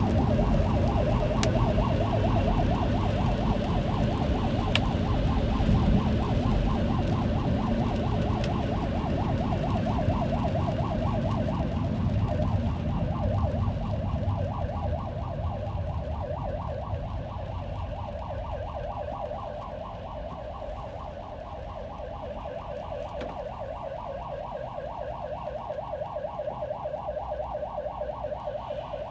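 Emergency vehicle siren with a fast, evenly repeating warble, heard from inside a car over a low road rumble that fades about halfway through.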